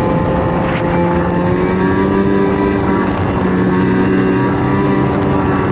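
Snowmobile engine running at a steady speed, its pitch shifting once about two seconds in.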